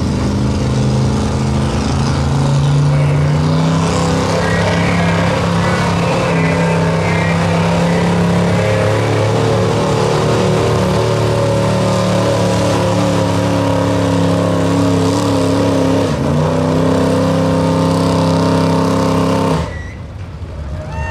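Old Dodge pickup's gasoline engine running hard at high, steady revs as it drags a weight-transfer pulling sled, its pitch dipping briefly a few seconds before the end. The engine note cuts off suddenly near the end as the pull ends.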